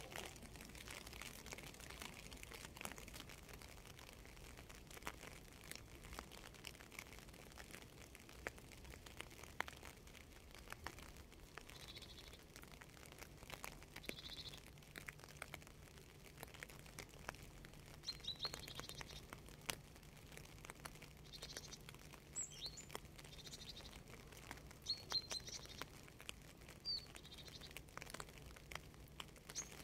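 Light rain dripping, with many scattered drops, and a small bird chirping in short high calls several times in the second half. A faint steady low hum sits underneath.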